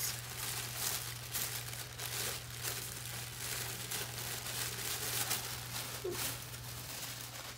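Tissue paper rustling and crinkling in many short, irregular crackles as it is unfolded from around a small wrapped item.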